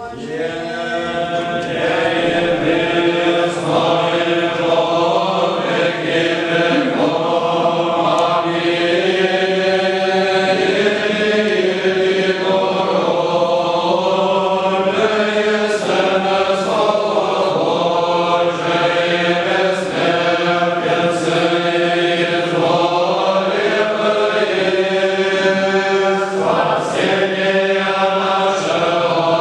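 Orthodox liturgical chant sung by a group of men's voices without instruments, the melody moving over a steady held low drone note. The singing swells up to full strength within the first couple of seconds and then runs on evenly.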